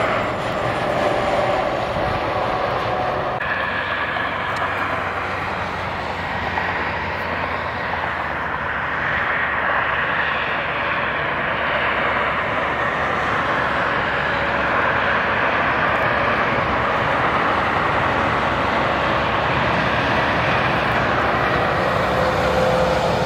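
Steady highway traffic noise: tyres and engines of tractor-trailers and cars on a steep interstate grade, heard from above the road.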